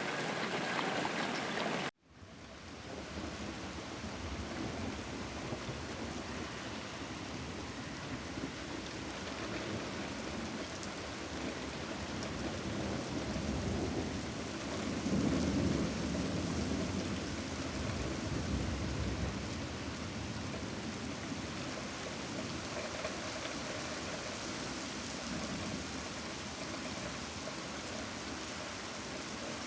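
Steady rain. It cuts out abruptly about two seconds in and fades back up, and a low rumble of thunder swells and dies away in the middle.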